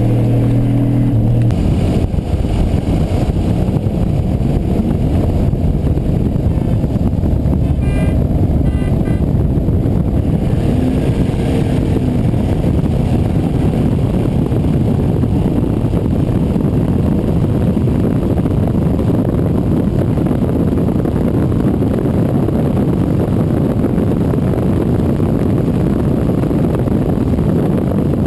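Heavy wind rush on a camera mounted outside a pickup truck at highway speed, with engine and road noise beneath it. For the first second or two, a steady engine drone with a clear pitch is heard before the wind roar takes over.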